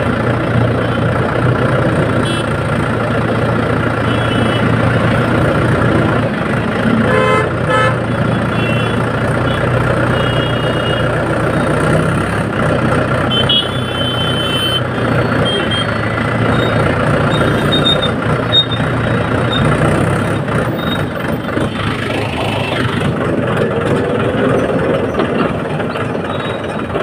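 Red Mahindra tractor's diesel engine running steadily under way, heard from the seat. Its low drone eases about twenty seconds in. A few brief high horn toots come through over it.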